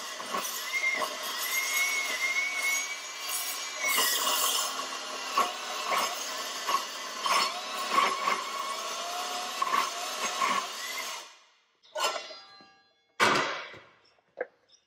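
Milwaukee M18 Fuel 2982-20 cordless metal-cutting circular saw with a 42-tooth carbide blade cutting through 3/8-inch steel plate: a steady high whine under a loud cutting hiss, with repeated sharp chatter spikes as the teeth bite the steel. The saw stops about 11 seconds in, followed by a few short knocks.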